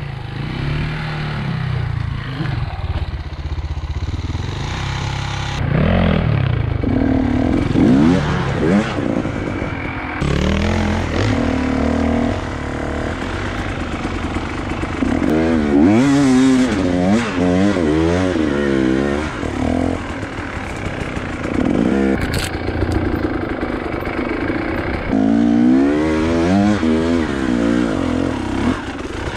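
Enduro dirt bike engine under way on a rough trail, its pitch rising and falling over and over as the throttle is opened and closed, in quick blips around the middle and again near the end.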